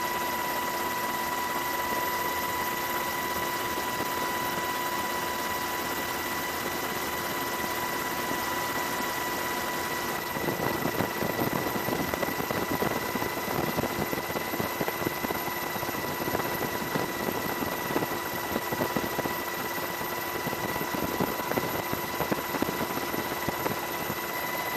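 Steady helicopter noise with a high, even turbine whine over a rushing hiss. About ten seconds in it turns rougher and a little louder, with uneven buffeting.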